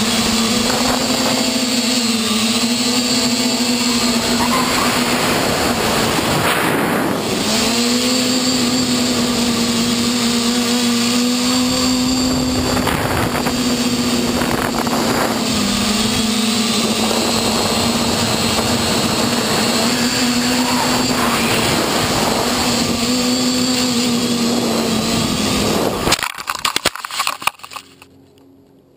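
V-tail quadcopter's electric motors and propellers whining steadily, heard from the craft's own camera, the pitch dipping and rising slightly with throttle. About 26 seconds in the craft crashes into the grass with a few knocks and rattles, and the motor whine cuts out.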